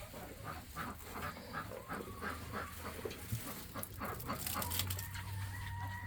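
Chickens clucking, many short clucks in quick succession, with a low steady hum coming in near the end.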